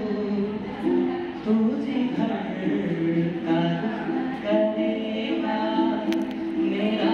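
Live singing of a song, the voice moving through a melody in held notes.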